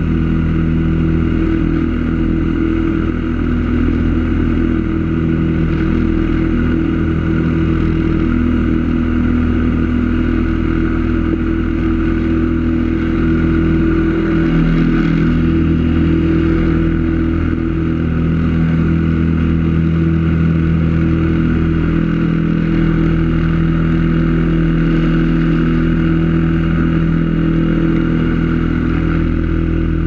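Stage 1 Predator 212 single-cylinder four-stroke engine on a Mudskipper Twister mud motor, running loud and steady as it drives the boat along, with only slight wavers in speed.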